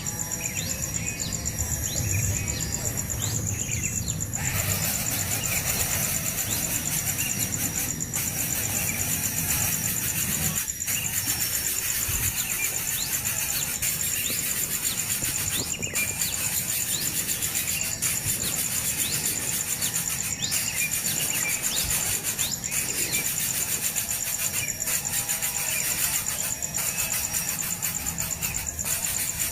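Steady high-pitched insect drone, with many short bird chirps scattered through it.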